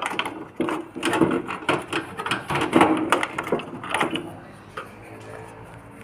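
Irregular clicks and rattles of hands working a plastic retaining clip and cables loose inside a desktop computer case, busiest for the first four seconds or so and then quieting.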